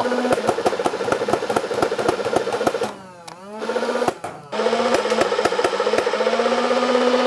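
NERF Rival Nemesis blaster firing full-auto: its electric flywheels run with a steady whine while the conveyor belt feeds foam balls through in a rapid stream of clicks. The firing breaks off briefly about three seconds in, with the motor pitch dropping and climbing back, before the stream resumes.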